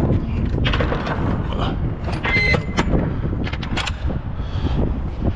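Metal swing doors of a semi-trailer being pushed shut and latched by hand: a series of clanks and knocks, with a brief high metallic squeal or ring about two and a half seconds in. A steady low rumble runs underneath.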